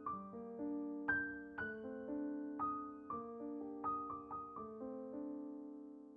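Background piano music: slow, soft notes struck one after another, each ringing out and fading.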